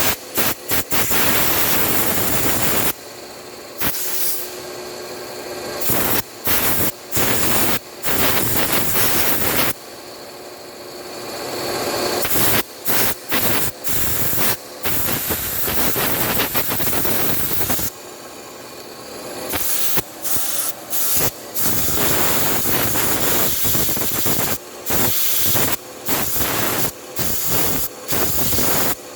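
Special-purpose CNC lathe running a machining cycle: a loud hissing noise that cuts out suddenly and comes back many times.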